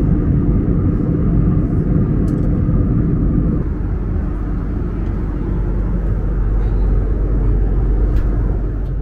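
Steady cabin rumble of a jet airliner in flight: engine and airflow noise heard from a passenger seat. A faint steady hum in it stops about a third of the way in while the rumble goes on.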